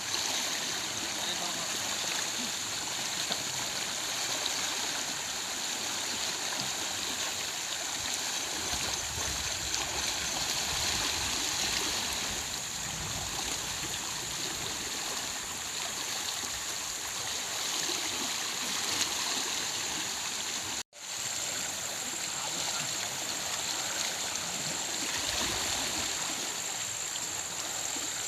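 Steady rush of flowing river water, broken once about two-thirds of the way through by a sudden split-second dropout to silence.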